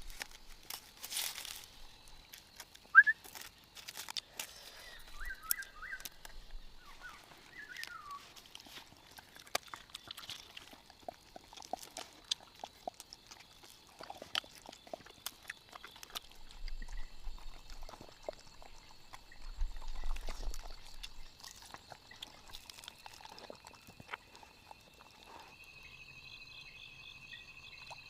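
Forest ambience of scattered light clicks and knocks, with a few short bird chirps in the first several seconds and a steady high insect drone, like crickets, setting in near the end.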